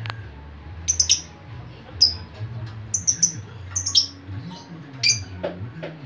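Lovebird calling in short, sharp, high-pitched chirps, several in quick pairs, about one burst a second, over a low steady hum.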